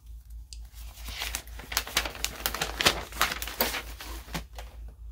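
Paper crinkling and rustling in a quick run of crackles, as spiral-notebook pages are handled, starting about a second in and dying away near the end.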